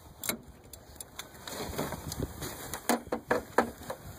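Hand tools clicking and clinking: a socket extension and wrench being handled, with a few separate clicks and then a quick run of sharper clicks about three seconds in.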